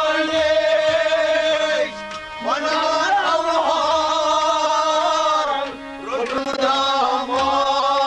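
Kashmiri Sufi song: male voices singing long drawn-out phrases to harmonium accompaniment, in three held phrases with short breaks about two and six seconds in.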